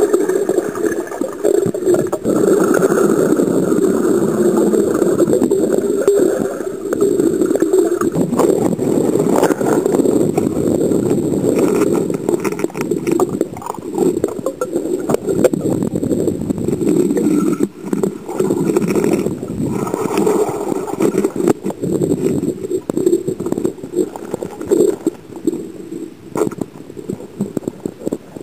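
Muffled rushing and gurgling of water heard through an underwater camera, with many short knocks and clicks scattered through it; it is loudest over the first few seconds.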